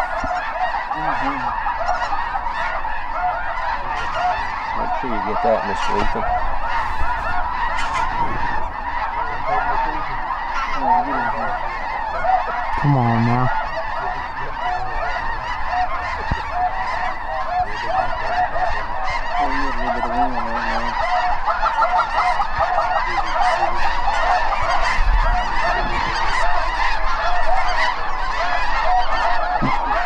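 A huge flock of snow geese calling overhead: a continuous din of many overlapping honks.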